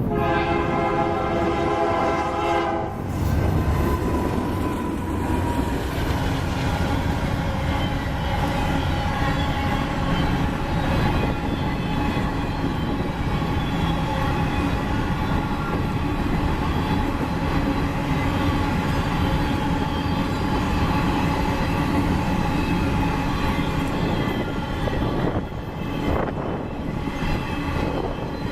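Union Pacific GE AC44CW diesel locomotive sounding one horn blast of about three seconds at the start, then its engine and the train running past steadily, with wheels clacking over the rail joints, as the empty coal train goes by.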